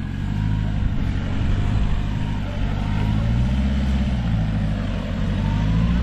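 Land Rover Defender 110's 2.4 TDCi four-cylinder turbo-diesel engine pulling under load as the truck crawls up a rocky slope, its note holding fairly steady with small rises and falls.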